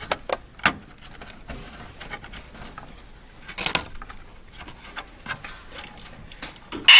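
Scattered small clicks and taps of plastic and metal parts being handled and snapped into place in the back of an LCD TV, with sharper clicks near the start and a short cluster a little past halfway.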